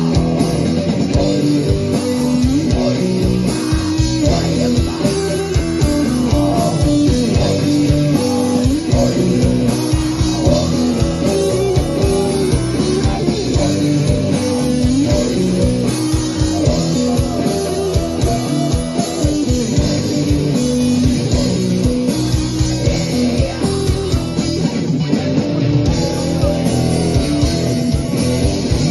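Rock band playing live: electric guitars and bass over a steady drum beat, with a singer's voice.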